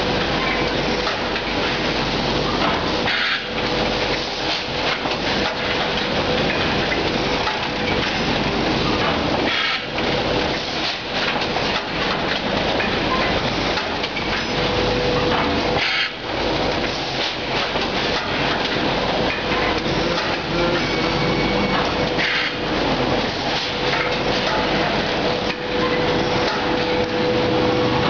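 Automatic bag-filling, palletizing and bag-sewing line running: a continuous dense clatter of machinery with a faint steady hum, dipping briefly a few times.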